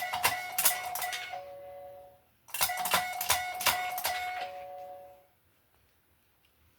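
Electronic doorbell-style chime set off twice by a dog pressing a button. Each time there is a quick run of ringing notes, ending in a held two-note ding-dong that steps from higher to lower.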